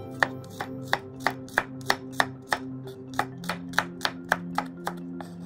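Chef's knife slicing garlic cloves on a wooden cutting board: a steady run of sharp knocks, about three a second, over background music.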